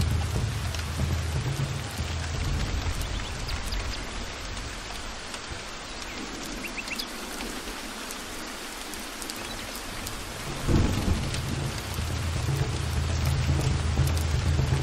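Steady heavy rain with rolling thunder. A low rumble dies away over the first few seconds, and a sudden thunderclap about eleven seconds in is the loudest moment, followed by a rumble that builds toward the end.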